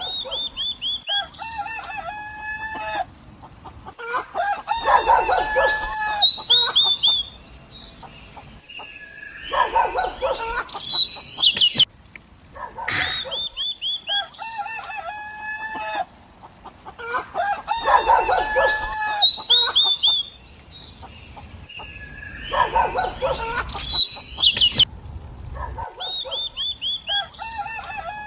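Chickens clucking and a rooster crowing in loud bouts. The same run of calls repeats about every 14 seconds.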